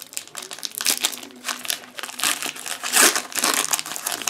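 Foil wrapper of a Pokémon card booster pack being opened and crinkled in the hands, a dense crackling that is loudest about three seconds in.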